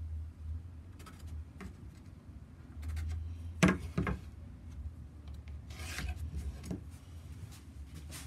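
Pencil scratching across a wooden board as lines are marked against a steel rule, with a few sharp knocks of the rule being set down and shifted on the wood. A sharper knock lands at the very end.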